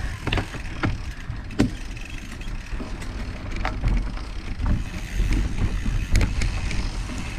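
Mountain bike rolling fast down a dirt singletrack: a continuous low rumble of tyres over the ground, with scattered clicks and knocks as the bike rattles over bumps.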